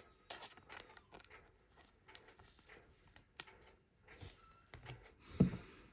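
Trading cards being handled and slid one behind another through a pack: faint soft rustles and small clicks, with a louder short sound about five seconds in.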